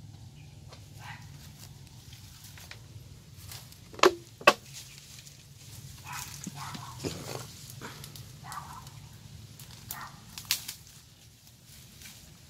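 A dog barks twice in quick succession about four seconds in, the loudest sounds here, with a few fainter barks or yelps later. Dry leaves and twigs crackle underfoot as a person walks barefoot through leaf litter.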